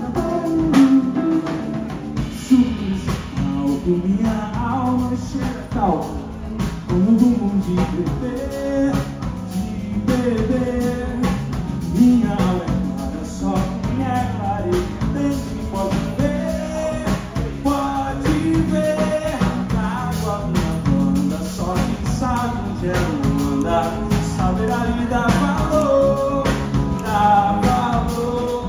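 A live band playing a song: a man sings lead over electric guitar, drums, keyboard and electric bass.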